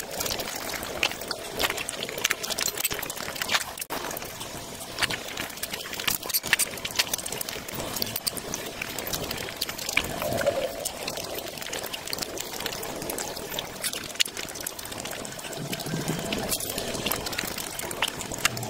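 Close-miked wet chewing and lip-smacking of someone eating rice with fish curry, a dense run of quick, sticky clicks.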